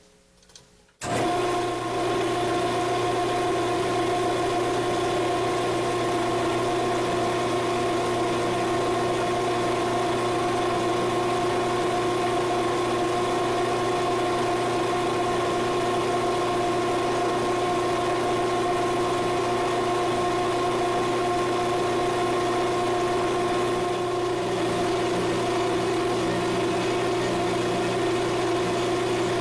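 Small hobby lathe switched on about a second in, its motor and drive then running at a steady speed with a steady multi-tone whine while it spins a metal rod and a small drill bit in the tailstock chuck is slowly fed into it.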